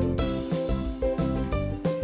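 Background music: a light instrumental tune of plucked string notes.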